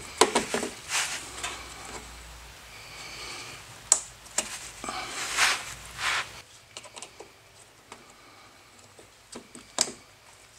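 Gloved hands handling parts during a fog-light bulb change behind a car's front bumper: an irregular scatter of light plastic clicks, taps and rustles, with a few sharper clicks.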